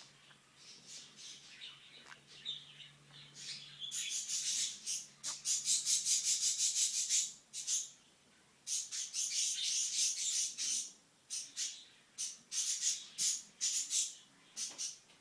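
Green-cheeked conure making kissing sounds: runs of quick, high smacks, several a second, in three bursts with short pauses, after a few faint chirps at the start.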